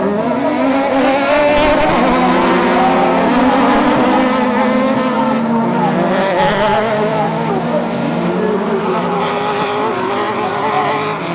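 Several autocross buggies racing together, their engines revving hard, the pitches rising and falling as they accelerate and shift.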